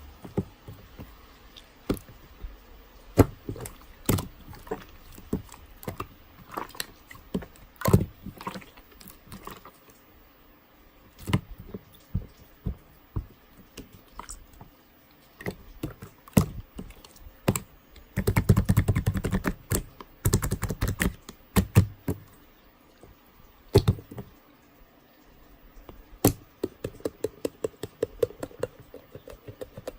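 Slime being worked by hand, giving sharp wet clicks and pops as it is pressed and stretched. A little past halfway comes a dense run of rapid crackling pops, and near the end another quick series of clicks.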